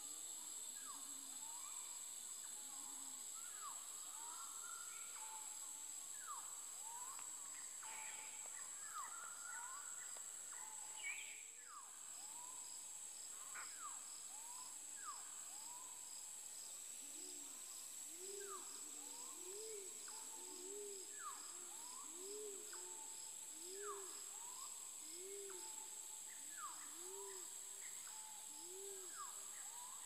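Forest ambience: several birds calling with repeated short, downward-sweeping whistles over a steady high insect drone. Just past halfway, a low hooting note joins in, repeated roughly once a second.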